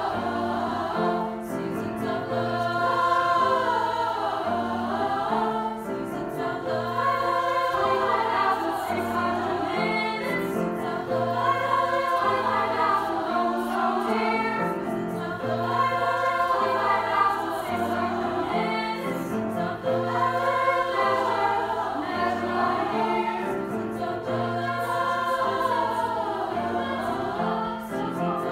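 A large girls' choir singing with grand piano accompaniment: many voices together, over steady low piano chords.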